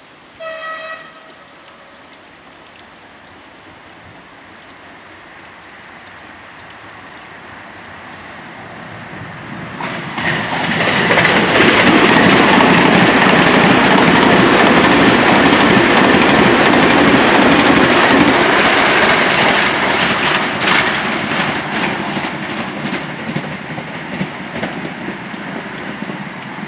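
A short train horn blast, then a Hyundai Rotem HRCS2 high-speed electric train passing close at speed. A rush of wheels on rails builds, is loudest from about ten to twenty seconds in with a steady high whine, and then slowly fades.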